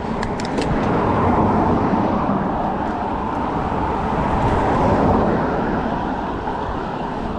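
Steady wind rumble on the microphone mixed with tyre noise from a gravel bike being ridden, with a few faint clicks in the first half second.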